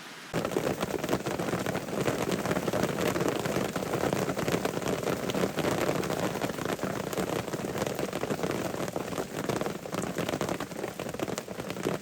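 Heavy monsoon rain falling steadily, with many individual drops striking a surface close by. It starts suddenly just after the beginning.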